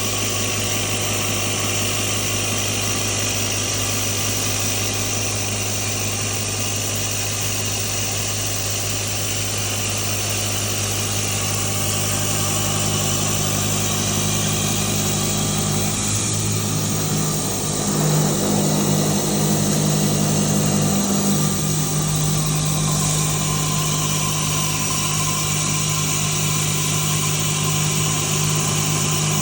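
Mazak CNC milling machine running a face-milling cycle on a plate with a 6-inch cutter, coolant and air on: a steady spindle hum with cutting noise. The tone shifts and grows a little louder from about 16 to 22 seconds in.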